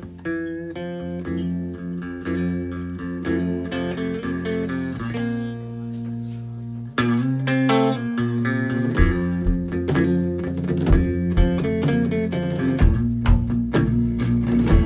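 Live electric guitar playing a picked intro on its own. About seven seconds in the drum kit joins, with cymbals and then a steady bass-drum beat under the guitar.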